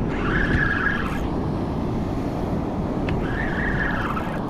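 Steady rushing of wind on the microphone and surf. Twice, a whirr of about a second from a spinning reel as a hooked fish is wound in.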